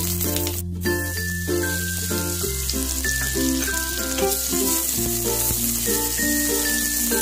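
Hot oil sizzling in a pot as whole spices and then sliced onions fry, under background music with a steady bass line and a stepping melody.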